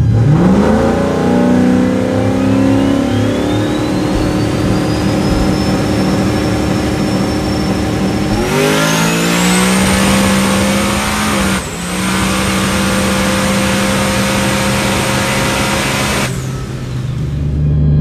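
Turbocharged Ford Coyote 5.0 V8 of an S550 Mustang at full throttle, engine note climbing fast and then holding, with a rising turbo whistle over it. Just past halfway it climbs again as the whistle goes higher and louder, there is a brief dip a few seconds later, and the run's sound gives way to a lower, steadier engine note near the end.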